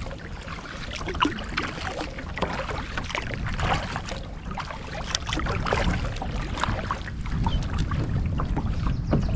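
Double-bladed kayak paddle dipping into lake water, with splashes and drips at each stroke. Wind rumbles on the microphone, growing louder toward the end.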